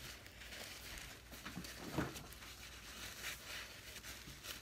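Paper towel rustling and crinkling as a plastic measuring spoon is wiped with it, with one light knock about two seconds in.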